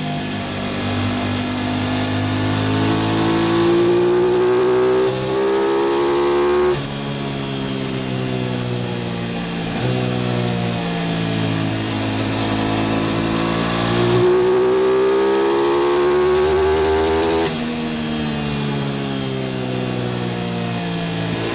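Aprilia RS660's parallel-twin engine pulling hard under acceleration, its note climbing through the revs. It falls away sharply at gear changes about 7 and 17 seconds in, then climbs again.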